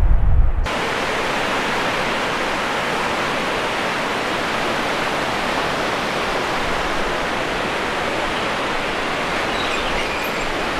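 Steady rushing of a fast mountain river's white water pouring over rocks, heard from a footbridge directly above it. It starts suddenly less than a second in, after a brief low rumble.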